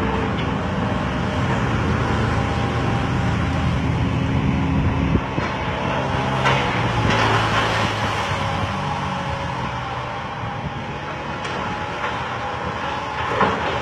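Hydraulic excavator diesel engines running steadily, with short bursts of noise about six to eight seconds in and again near the end.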